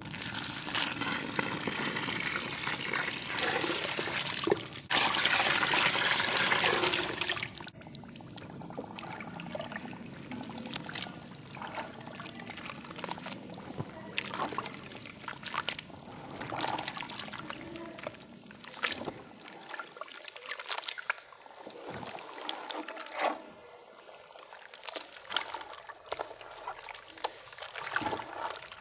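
Water poured into a bowl of dry marble powder, a steady pour that gets louder about five seconds in and stops after about eight seconds. Then bare hands squeeze and slosh the wet marble paste, with irregular squelches and wet clicks.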